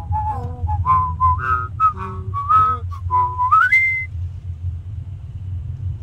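A person whistling a railway in-train chime melody, a string of short notes that ends about two-thirds of the way through with a glide up to a briefly held high note. Under it, and alone after it, runs the low steady rumble of the car being driven.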